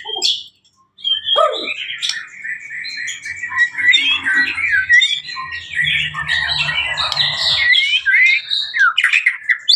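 White-rumped shama (murai batu) singing: a fast, unbroken run of varied whistles and chattering notes that starts after a brief pause about a second in.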